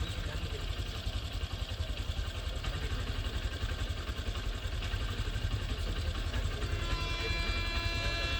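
Electric-locomotive-hauled express train running near, a steady low rumble. About seven seconds in, a high sound of several tones together joins it.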